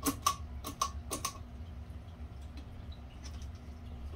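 A quick run of about six light clicks and taps in the first second and a half, as the ceiling fan's plug and cord are pulled and handled, then only a low steady hum.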